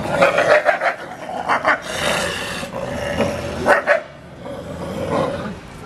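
Wolves snarling and yelping as two of them wrestle, a run of loud, sharp bursts through the first four seconds, quieter near the end.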